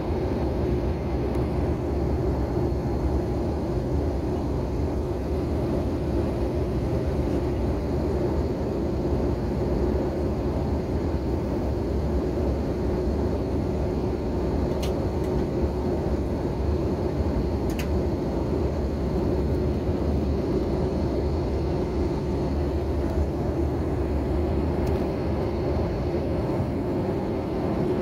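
Steady drone of jet engines and rushing air inside an airliner cabin in flight, with a couple of faint clicks past the middle.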